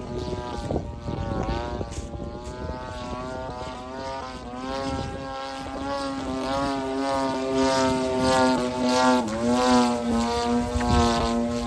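A 73-inch Extra 300 RC model airplane's 30cc gasoline engine and propeller droning as it flies, the pitch wavering up and down with a sharp drop about nine seconds in. It gets louder in the second half, over a low rumble of wind on the microphone.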